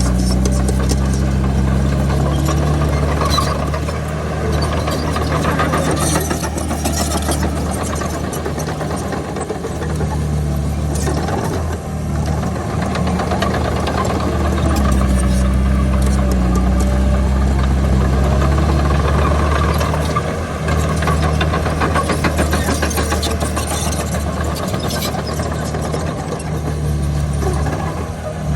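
Komatsu D31PX bulldozer's diesel engine running under changing load, its note swelling and easing every several seconds, with scattered metallic clanks.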